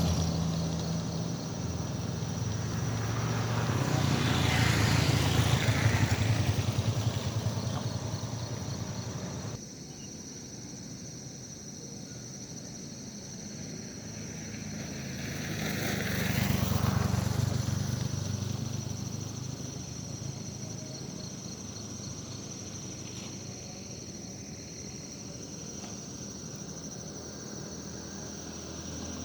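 Two motor vehicles passing one after the other, each engine swelling up and fading away, the first loudest about five seconds in and the second about sixteen seconds in. A steady high insect buzz runs underneath.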